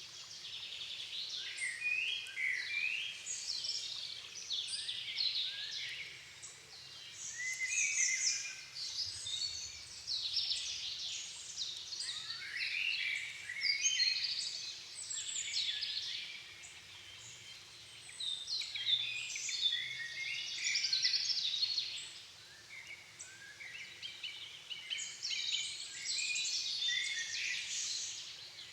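Dusk chorus of songbirds: several birds singing varied, high, twittering phrases that overlap and swell in waves every few seconds.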